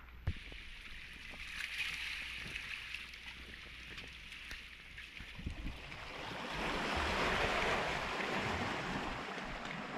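Small Mediterranean waves washing in over a pebble beach and among the shore rocks, the wash swelling louder about two-thirds of the way through.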